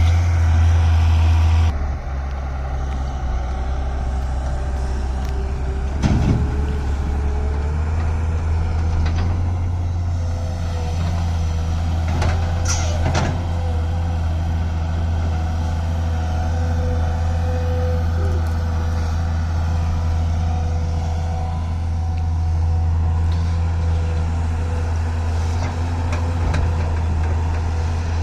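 Excavator-loader's diesel engine running steadily under a thin whine. The engine note drops about two seconds in. Short knocks and hisses come about six seconds in and again near the middle.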